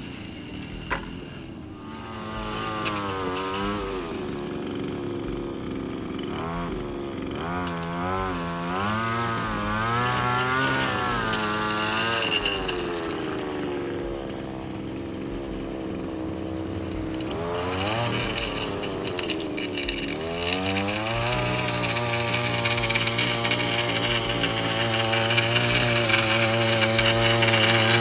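Electric string trimmer with an edging wheel running while edging a lawn, its motor pitch rising and falling as the line bites into grass. The motor then runs steadier and grows louder as it comes closer near the end.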